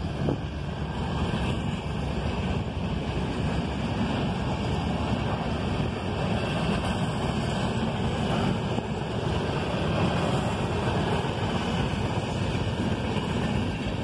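Passenger train's coaches rolling past along the track, a steady rumble. Wind on the microphone.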